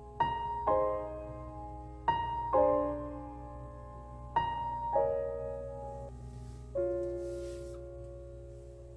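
Background music: slow, gentle piano, with notes struck in pairs about every two seconds and left to ring out, the last one near seven seconds in sustaining to the end.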